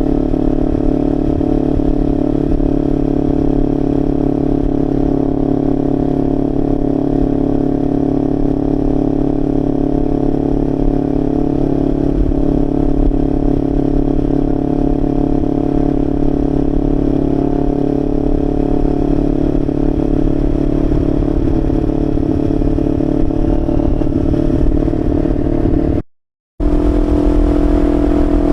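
2025 Kawasaki Ninja 500's parallel-twin engine through a Leo Vince LV Corsa aftermarket exhaust, loud and running at a fairly steady speed while riding, with wind rumble on the microphone. The sound cuts out for about half a second near the end.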